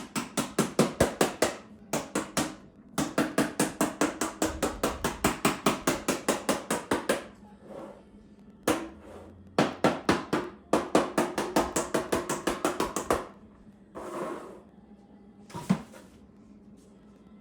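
Rapid back-and-forth scraping strokes on body filler, about six a second, in bursts of a few seconds with short pauses, then a single sharp click near the end.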